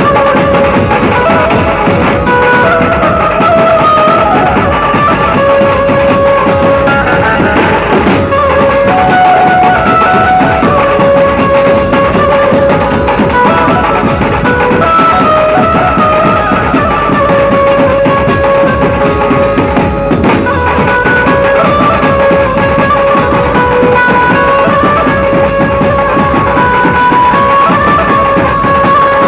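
Dhumal band playing loud: dense, driving drumming under a stepping, repeating melody on a lead instrument.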